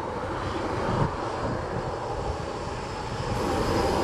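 Aircraft turbine engine running, a steady rush with a faint high whine that slowly drops in pitch. It gets a little louder about three seconds in.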